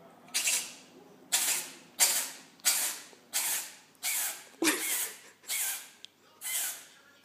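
A cat sneezing over and over in a fast run, about nine sharp, breathy sneezes, a little under a second apart.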